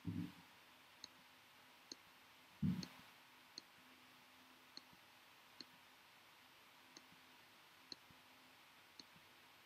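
Computer mouse clicking, about one click a second, as points are placed along a lasso selection. Two louder low thumps, one at the very start and one near three seconds in.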